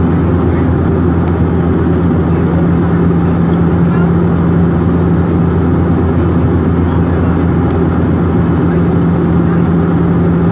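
Steady engine drone of an airliner in cruise, heard inside the cabin: a constant hum with a deep unchanging tone beneath it.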